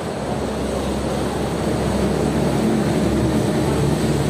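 A fish scaler scraping scales off a whole salmon's skin, a dense scratchy noise over a steady low machine hum that sets in just after the start.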